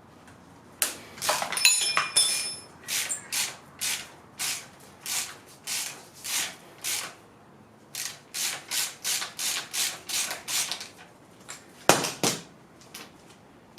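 Hand ratchet wrench clicking in repeated back-and-forth strokes, about one to two a second, while loosening bolts on the engine's timing cover. A metal tool rings briefly about two seconds in, and there is a louder knock near the end.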